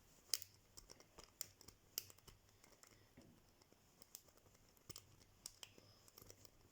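Faint, irregular metallic clicks and scratches of a lock-pick rake being worked in and out of an old Gold Door six-pin padlock, finishing off a hybrid pick.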